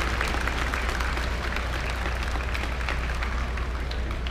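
Crowd applauding, the clapping thinning out toward the end, over a steady low hum.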